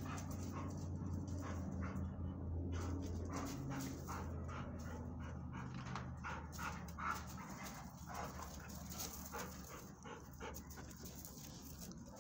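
Two dogs playing: panting and paws scuffling on gravel, over a low drawn-out rumble in the first few seconds.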